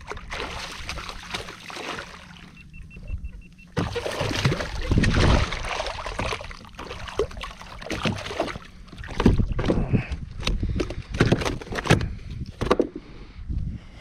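Irregular knocks, rubbing and water splashes on and around a fishing kayak. They grow louder and busier about four seconds in.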